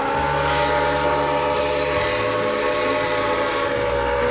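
Steam locomotive whistle blowing one long, steady blast of several notes sounding together, over the rumble of the moving train.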